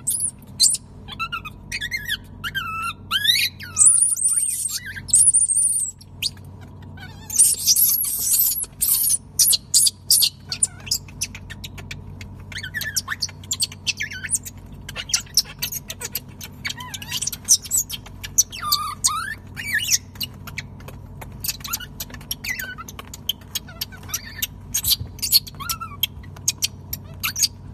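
Infant monkeys squealing and chirping in high, wavering, gliding calls, loudest in the first several seconds, with many short clicks and scratches over a faint steady hum.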